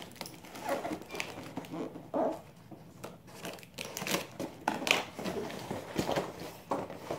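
Scissors snipping and scraping through the tape and cardboard at the end of a shipping box, in irregular short cuts, with rustling and knocks as the cardboard box is handled and lifted near the end.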